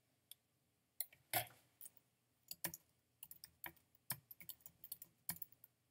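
Typing on a computer keyboard: a run of short, irregular keystroke clicks starting about a second in.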